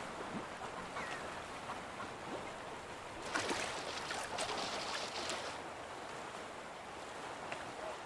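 Gentle water lapping and splashing from dabbling ducks feeding on a river, with a louder stretch of splashing from about three to five seconds in.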